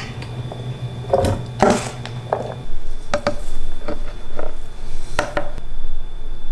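Kitchen handling sounds: a series of short knocks and clinks of metal and plastic containers against a blender jar as ingredients are tipped into it, over a low steady hum.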